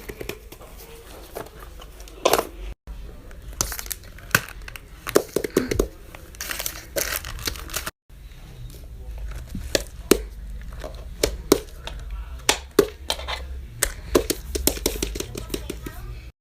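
Fidget toys being handled: irregular sharp clicks and pops mixed with crinkling, coming faster in the last few seconds, broken twice by a momentary cut to silence.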